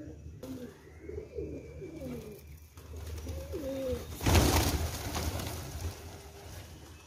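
Feral rock pigeons cooing, several low, bending coos in the first half. About four seconds in comes a short, loud rush of noise that is the loudest sound here.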